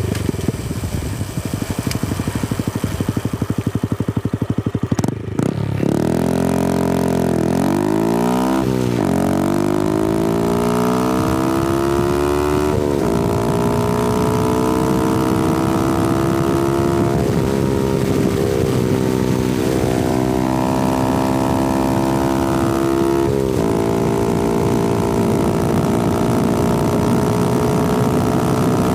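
Honda Grom's 125cc single-cylinder four-stroke engine under way, heard close at the exhaust. It runs low and pulsing for about five seconds, swoops down and back up in revs, then holds a slowly climbing pitch broken by several brief gear shifts.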